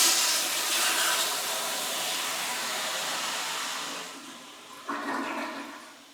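Toilet flushing: a loud rush of water that eases off after about four seconds, then a brief second surge about five seconds in before it fades out.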